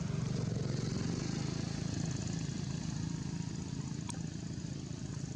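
A motor engine running steadily with a low rumble, with one brief click about four seconds in.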